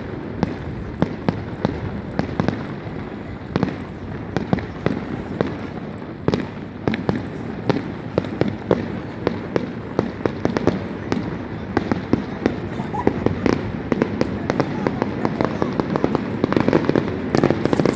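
Fireworks display going off: a dense, irregular run of sharp bangs and cracks, several a second, growing louder near the end.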